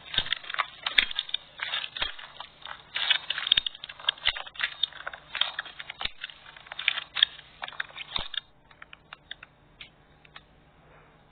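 Slime being squished and worked by hand, giving a dense run of crackling, clicking pops. After about eight seconds it thins to a few scattered clicks.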